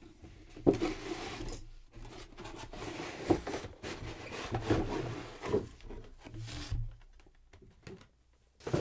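Cardboard model-horse box with a clear plastic window being opened by hand: irregular rustling, scraping and a few light knocks as the flap is opened and the cardboard insert is slid out.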